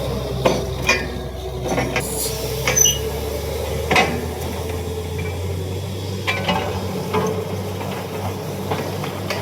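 Borewell drilling rig's engine running steadily, with irregular sharp metallic knocks and clanks over it, the loudest about four seconds in.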